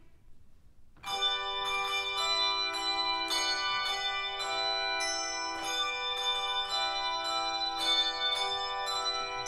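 English handbell choir starting to play about a second in: several bells struck together in a steady rhythm, fresh strikes about every half second, each chord ringing on under the next.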